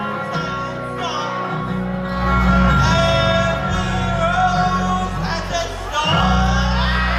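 Live rock band playing loudly: electric guitars and drums with a singing voice over them. The band gets louder about two seconds in, drops out briefly near six seconds, then comes back in with a hit.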